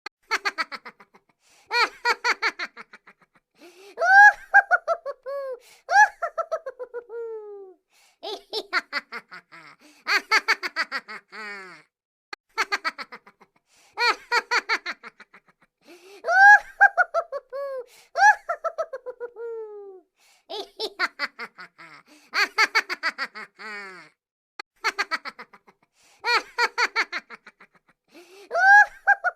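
Cartoon laughing sound effect: a high-pitched voice laughing in quick ha-ha bursts of a second or two with short gaps between, some phrases sliding down in pitch, the same run of laughs coming round again every twelve seconds or so.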